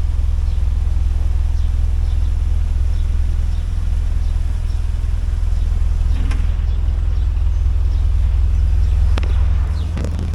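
Narrowboat's diesel engine running steadily with a low, even hum. There are two sharp clicks, about six and nine seconds in, and the engine eases off slightly near the end.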